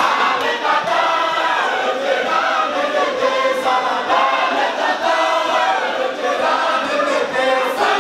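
A large group of men chanting together in unison, a long-held melodic religious chant of a Sufi dhikr circle.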